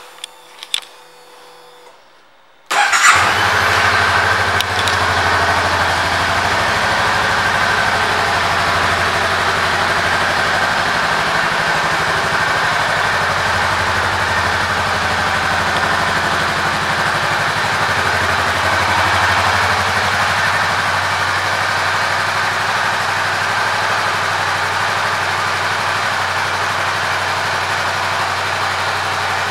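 2019 Honda Rebel 500's 471 cc parallel-twin engine starting up after a few faint clicks, catching suddenly about three seconds in, then idling steadily.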